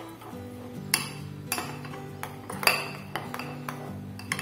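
A spoon clinking and scraping against a white ceramic bowl while stirring a thick mayonnaise sauce, about six sharp clinks at irregular intervals. Background music with steady low notes plays underneath.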